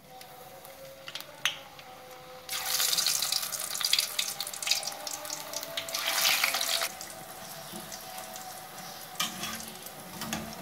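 Strips of namak para dough frying in hot oil in an aluminium karahi. The sizzle flares loudly about two and a half seconds in, and again around six seconds as more handfuls go in, then settles to a steady bubbling fry.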